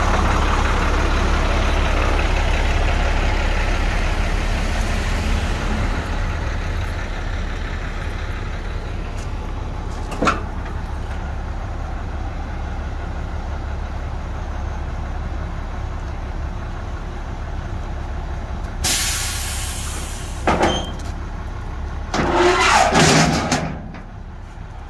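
International DT466 inline-six diesel idling steadily, louder for the first few seconds and then quieter. Near the end comes a short burst of hiss, then a couple of seconds of louder mechanical noise as the truck's rear liftgate is worked.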